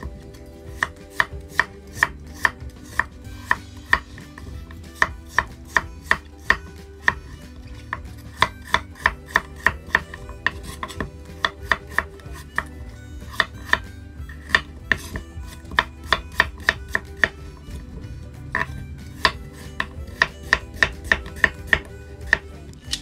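Kitchen knife chopping chayote on a wooden cutting board: sharp knocks of the blade on the board, about three a second, in runs with brief pauses, over a low steady hum.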